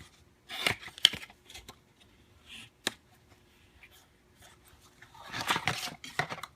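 Cardboard packaging rustling and being handled as a flashlight box is opened, with a few sharp clicks. There are bursts of rustling about a second in and again near the end.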